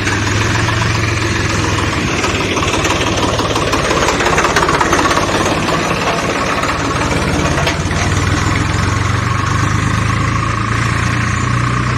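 A small motor running steadily, with a low hum and a fast flutter. A higher steady whine grows stronger in the second half.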